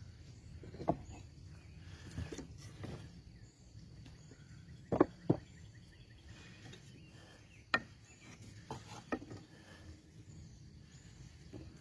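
Scattered sharp knocks and clicks of wood and tools being handled on a shop bench: a close pair about five seconds in and a single knock near eight seconds are the loudest. Faint insects chirp steadily behind them.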